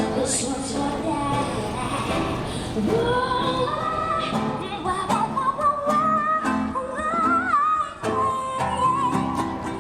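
Music with a high singing voice over an accompaniment; the sung line enters about three seconds in and wavers with vibrato on its held notes.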